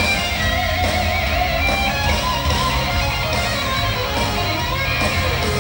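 Heavy metal band playing live in an arena: a lead electric guitar line with wavering, bent notes over bass and drums, taped from among the audience.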